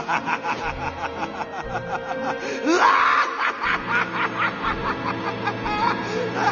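The Joker's laugh used as a phone ringtone: a man's rapid, pulsing cackle over a steady music bed, swelling into a louder burst of laughter about three seconds in.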